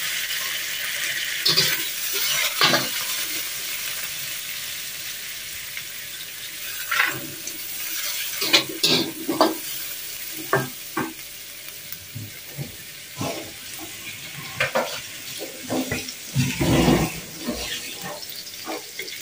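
Dried anchovies, shallots and green chilli sizzling in oil in a wok, stirred with a slotted metal spatula that scrapes and knocks against the pan in irregular strokes. The sizzle is strongest at first and dies down over the first several seconds.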